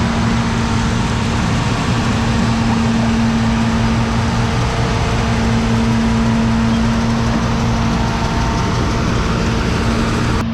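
Turbocharged John Deere 6620 combine running steadily while harvesting soybeans: a constant, loud mechanical drone with a steady low hum.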